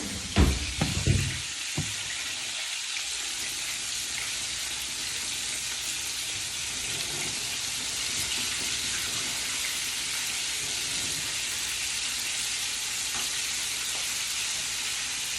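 Chicken pieces frying in hot oil in a pan, a steady sizzle. A few low knocks come in the first two seconds.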